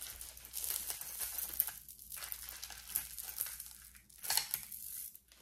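Plastic bags crinkling and a long strand of beads rustling and clicking as it is lifted and handled, unevenly, with a louder rustle about four seconds in.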